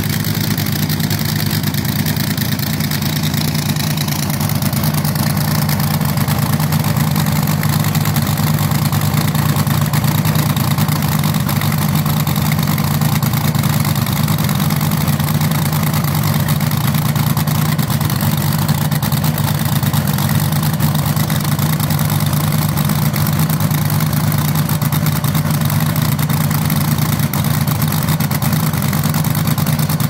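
Supercharged nitromethane-fuelled front-engine dragster engine idling with a loud, steady cackle through open zoomie headers, not revved.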